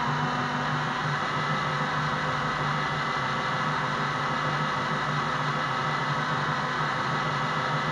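Electric drill running steadily at speed, spinning a car alternator whose output is lighting a 12 V bulb brightly; a steady motor whine with a hum beneath it.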